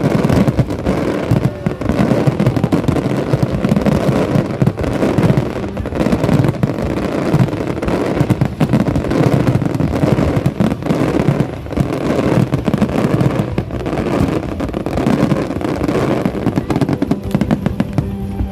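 Fireworks going off in rapid succession: a loud, dense, continuous crackle of overlapping bangs.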